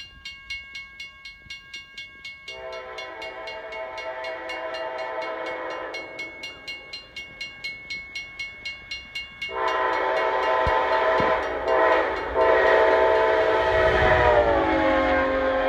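Railroad crossing bell ringing steadily at about three strokes a second while an Amtrak P42DC Genesis diesel locomotive approaches at speed sounding its horn. The horn gives one long blast, then a second that is held as the locomotive passes, its pitch dropping as it goes by. The locomotive's engine and wheels rumble loudly at the pass near the end.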